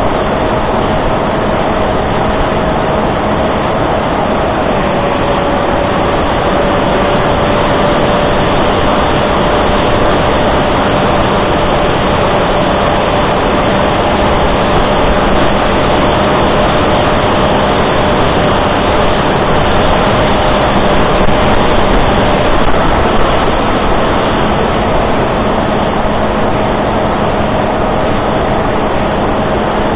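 Electric motor and propeller of a Reptile S800 flying wing running steadily in flight, heard from its onboard camera over a loud rush of air. The motor's hum drops slightly in pitch about five seconds in and comes back up about three-quarters of the way through.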